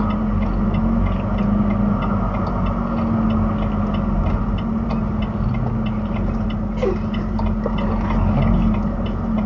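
Semi truck's engine running steadily, heard from inside the cab, with light irregular ticking over the drone. The sound cuts off suddenly at the end.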